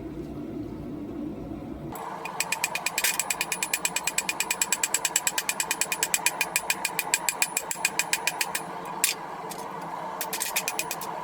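Rapid, evenly spaced hammer blows on steel, about ten a second, ringing sharply. They come in a long run starting about two seconds in, then a single blow, then a shorter run near the end.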